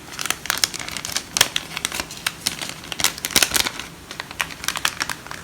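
A plastic storage bag being handled and opened, crinkling with a quick irregular run of sharp clicks and rustles.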